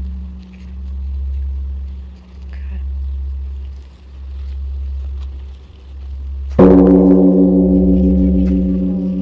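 A large struck metal bell or gong rings with a low hum that swells and fades slowly. About two-thirds of the way in it is struck again, sharply, and rings out with several steady tones that slowly decay.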